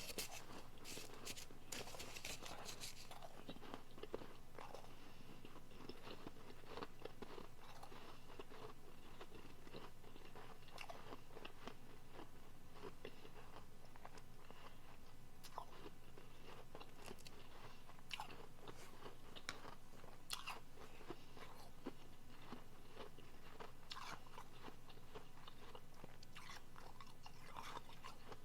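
Close-up crunching and chewing of soft, powdery refrozen blender ice in the mouth: dense crunching for the first few seconds, then lighter, scattered crunches as it is chewed down.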